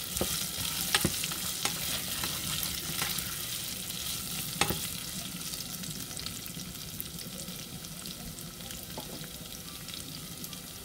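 Pork and carrot pieces sizzling steadily as they fry in a pot. Through the first few seconds there are clicks and scrapes of a spatula stirring them; these thin out about halfway, and the sizzle carries on.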